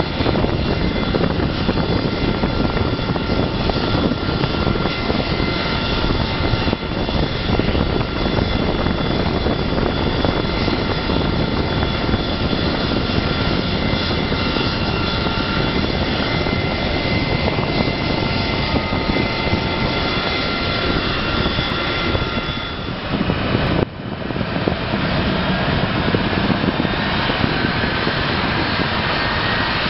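CC-177 Globemaster III's Pratt & Whitney F117 turbofan engines running at idle: a loud steady rumble with several high, steady whining tones. About 24 s in the sound breaks off and resumes as a steady engine rumble without most of the whine, as the jet taxis.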